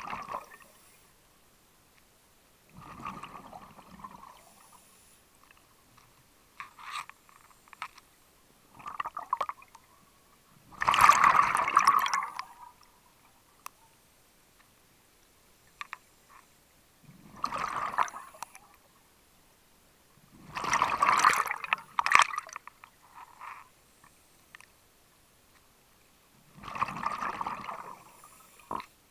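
Scuba diver's exhaled air bubbling out of the regulator, recorded underwater: a burst of bubbling lasting one to two seconds every few breaths' worth of seconds, about six times, with faint clicks and near silence between the breaths.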